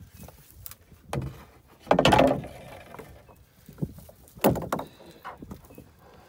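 Knocks, bumps and short scrapes of a canoe hull and the gear in it (rope, paddle) as the boat is loaded and boarded from a concrete bank: a few separate thuds, the loudest about two seconds in and again about four and a half seconds in.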